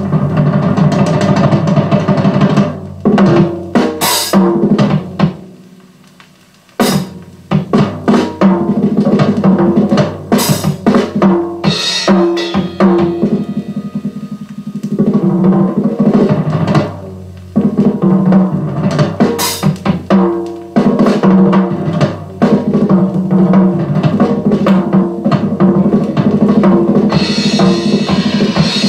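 Dry drum kit solo from an audio check record, played back over hi-fi loudspeakers: fast rolls and fills with bass drum and snare, and a few cymbal crashes, with a short break about six seconds in. The recording captures only the drums themselves, with no reverberation or echo.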